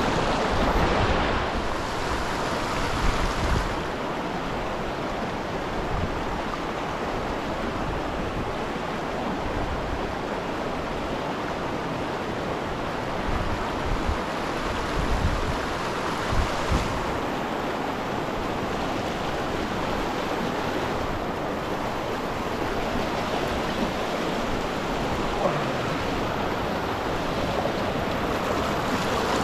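Steady rush of a small mountain stream tumbling over rocks in shallow rapids, with a few brief low bumps near the start and around the middle.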